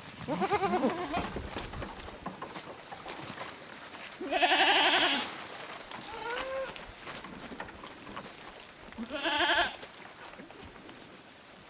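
Goats bleating, four wavering bleats: a pair at the start, the loudest and longest about four seconds in, a short one near six seconds and another about nine seconds in.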